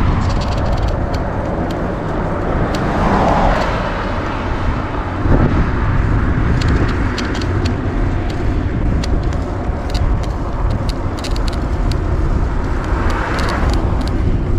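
Wind buffeting a bike-mounted camera's microphone, with tyre and road noise from a bicycle riding a highway shoulder. Passing traffic swells up about three seconds in and again near the end, over scattered small clicks and rattles.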